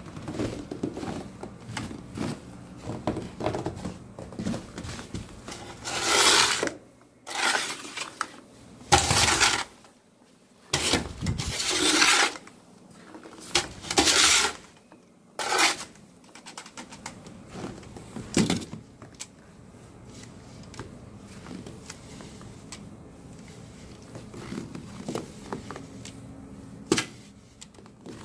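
Snow shovel scraping and pushing snow across a balcony floor: a run of short, sharp scrapes, loud and frequent at first, then lighter scratching in the last third.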